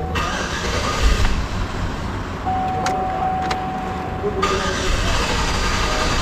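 2012 GMC Yukon XL's V8 being cranked on the starter in two attempts, with a steady electronic warning tone and a couple of clicks between them. The engine is hard starting, a fault that a new crankshaft position sensor has not cured.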